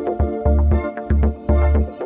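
Electronic background music with a steady pounding bass beat, about two beats a second, and pitched synth notes over it.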